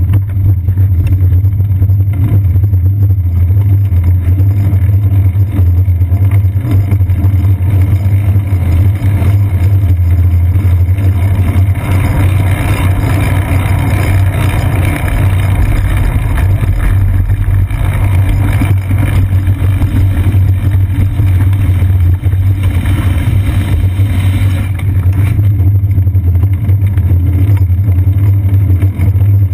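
Steady loud low rumble of wind and road vibration picked up by a camera mounted on a bicycle's seat post while riding on wet pavement. A broader rushing hiss swells for about a dozen seconds in the middle.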